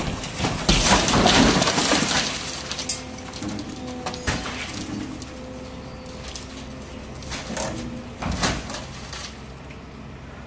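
A scrapyard grab crushing the cab of a Ford Transit pick-up: metal buckling and windscreen glass breaking, loudest in the first two seconds, with further crunches about four, seven and a half and eight and a half seconds in. Under it runs the steady hum of the grab machine.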